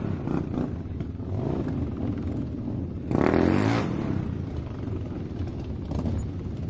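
Motorcycle engines running, with one louder surge in engine sound lasting under a second about three seconds in.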